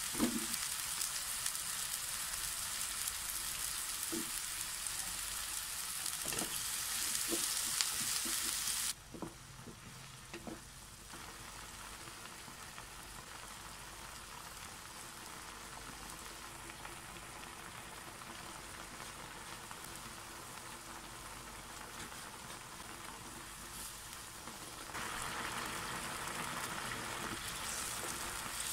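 Beef sizzling and bubbling in liquid in a nonstick frying pan, with a few light knocks of a wooden spatula stirring in the first several seconds. The sizzle turns quieter about nine seconds in and grows louder again near the end.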